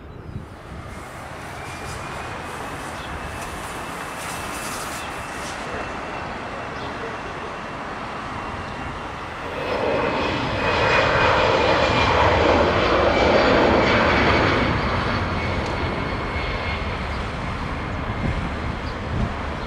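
Jet airliner's twin engines at takeoff power during its takeoff roll: a rushing noise with a thin high whine, swelling loud about halfway through for some five seconds, then easing off.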